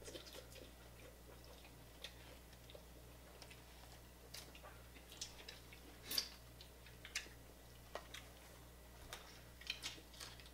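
Faint eating sounds: chewing, with scattered soft clicks and cracks of crab legs being picked apart and eaten by hand. The loudest crack comes about six seconds in.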